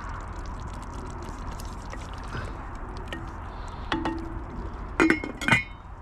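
Wooden spoon stirring thick curry in a black enamel pot, a wet, liquid sound. Then the enamel lid clinks against the pot and clanks down onto it twice, with a short metallic ring, about five seconds in.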